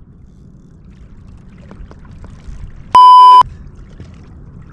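A single loud, steady electronic bleep, about half a second long, about three seconds in, of the kind edited over a word to censor it. Under it is a low, steady rumble of wind and water.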